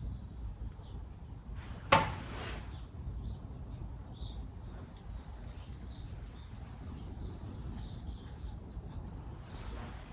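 One sharp knock about two seconds in, over a low steady rumble. Faint high chirping from small birds comes in during the second half.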